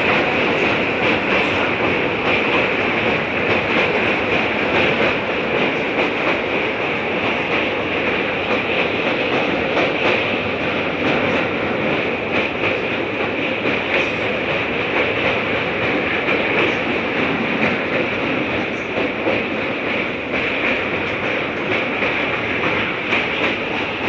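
Passenger train running at speed, heard from inside a coach: a steady rush of wheel and track noise with faint scattered clicks from the rails.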